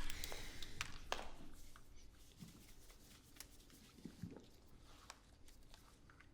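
Faint scattered clicks and a few soft knocks in a quiet room, with a preceding sound dying away over the first couple of seconds.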